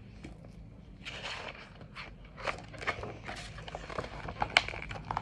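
A hardcover picture book being opened and its pages turned and handled: a series of irregular paper rustles and scrapes.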